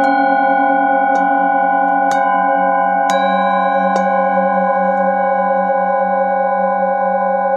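Metal singing bowls ringing together in a dense chord of steady tones, a handheld bowl struck with a mallet about once a second for the first five seconds. The lowest tone wavers slowly as the bowls' tones beat against each other.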